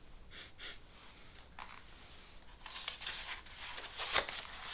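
Paper rustling as the pages of a picture book are handled and turned: a few soft brushes, then a longer rustle with a sharper flick near the end.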